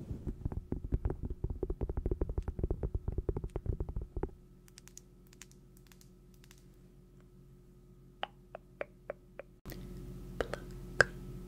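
Rapid close-miked tapping, many taps a second, for about four seconds, then a few sparse, separate clicks near the end.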